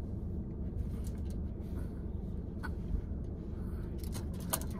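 Steady low rumble of a car idling, heard from inside the cabin, with a few light clicks and taps scattered through it, more of them near the end.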